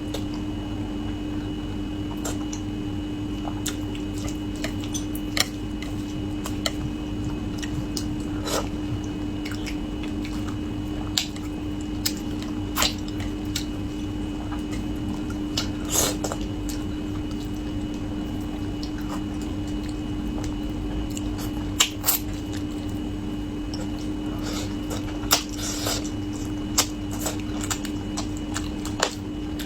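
A person eating braised carp close to the microphone: wet, squishy chewing and biting with scattered sharp clicks and taps at irregular moments. A steady low hum runs underneath.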